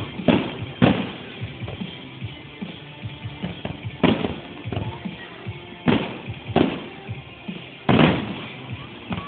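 Aerial fireworks shells bursting with sharp bangs, about six at irregular gaps, over background music.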